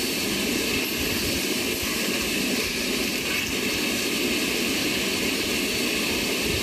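Hydraulic power unit of a mini alligator metal shear running steadily, a constant machine drone with no distinct cutting strokes standing out.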